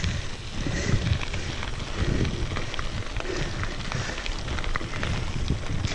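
Mountain bike tyres rolling over a loose gravel road: a steady crunching hiss dotted with many small crackles of stones, over a low rumble of wind on the microphone.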